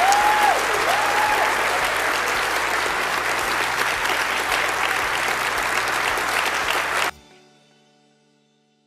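Conference hall audience applauding after a speech. The clapping cuts off suddenly about seven seconds in, leaving a faint musical tone that fades away.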